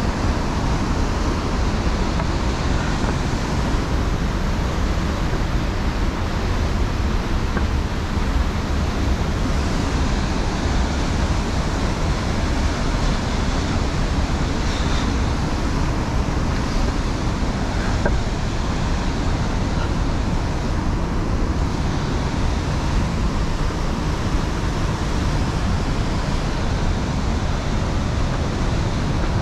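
Steady rush of the Youghiogheny River pouring over Ohiopyle's Main Falls, an even whitewater noise without a break.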